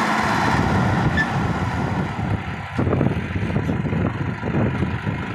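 Sonalika DI tractor's diesel engine running under heavy load, pulling a trolley full of soil over loose dirt, with an uneven chugging in the second half.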